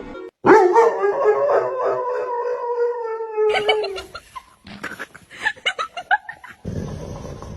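A dog howling: one long drawn-out note of about three and a half seconds, slowly falling in pitch, followed by a few short yips.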